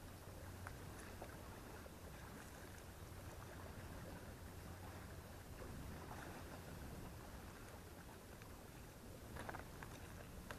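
Faint, steady outdoor ambience of wind and lake water lapping at the shore.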